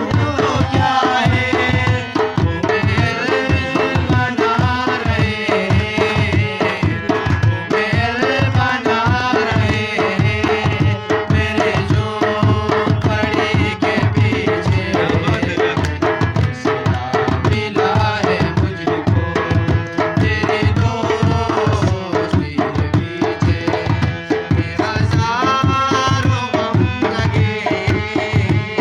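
Instrumental interlude of a ghazal: tabla playing a steady, quick rhythm under a melody instrument that plays gliding phrases, with no singing.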